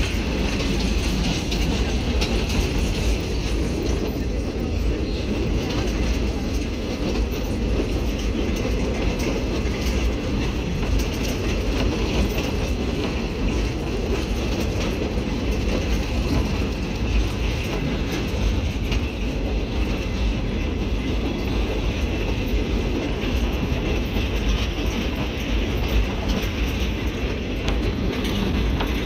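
Passenger train rolling along the track, heard from an open-air car: a steady, unbroken rumble with faint scattered ticks from the wheels.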